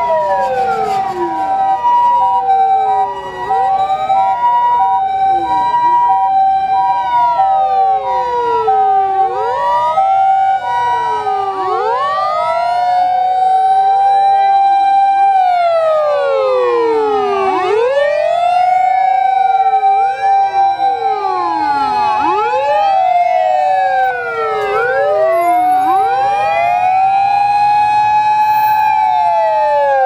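Sirens of several Japanese fire and rescue vehicles on emergency runs, wailing up and down and overlapping one another. An ambulance's two-tone hi-lo siren alternates steadily among them, most prominent in the first half.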